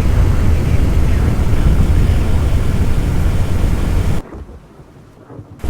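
Loud, steady rumbling rush of noise, heaviest in the low end. It drops out abruptly about four seconds in and returns near the end.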